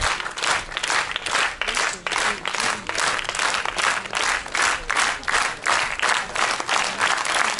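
A cinema audience applauding, clapping together in a steady rhythm of about two and a half claps a second.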